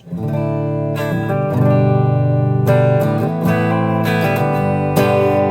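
Gibson R8 Les Paul electric guitar on its bridge humbucker, played through a Roland Cube 30 practice amp: ringing strummed chords, a new chord struck about every second.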